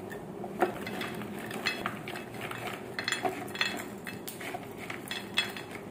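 Crisp fried macaroni papad pieces tumbling from a bowl onto a ceramic plate: scattered, irregular clicks and light clinks as the pieces land and settle.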